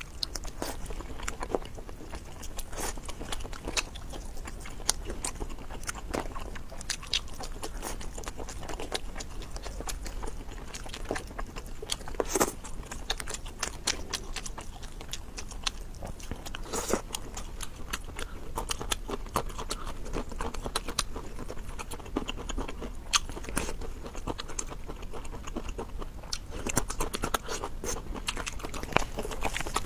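A person eating: chewing and biting into spicy crayfish and baby octopus, with many sharp, wet clicks and crunches at irregular intervals.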